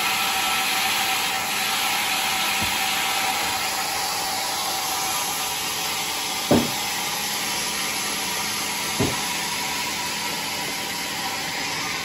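Large sawmill band saw running steadily with a continuous whirring hiss. Two short dull knocks come from the heavy teak timber being moved: a louder one past the middle and a smaller one about two and a half seconds later.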